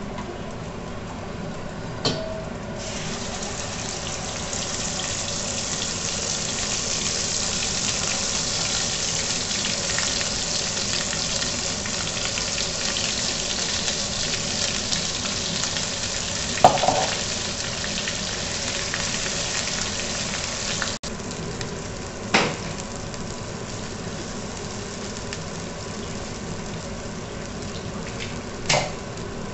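Hot oil and ghee with whole spices and a ground masala paste sizzling in a kadhai, a steady frying hiss that grows louder a few seconds in, as a wooden spatula stirs. A few sharp knocks of the utensils come through it, the loudest about halfway.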